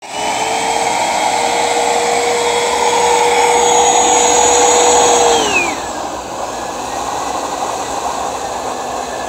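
Eureka bagless upright vacuum cleaner running with its hose drawing from a bucket of water: a loud, steady motor whine that creeps slightly higher, then about five and a half seconds in drops sharply in pitch and volume as the motor slows, and runs on at the lower speed.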